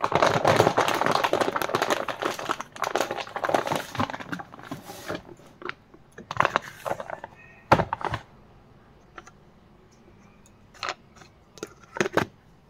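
Powdered laundry detergent being handled and poured from a plastic bag, a dense crinkling and rustling for about the first five seconds. Then a few separate knocks and taps as containers are handled on the wooden table, the sharpest about halfway through and two more near the end.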